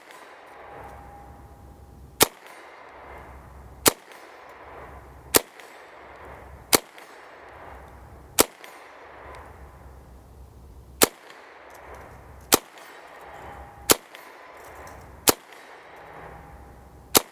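Calico M900 9mm semi-automatic carbine firing single aimed shots, ten in all, about one every second and a half, with a longer pause about halfway through.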